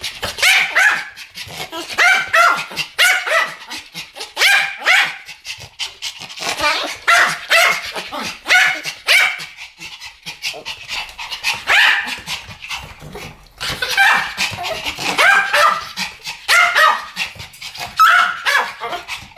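Two Pomeranians barking together in a duet: rapid, repeated high-pitched yapping barks, overlapping in runs with short pauses between them.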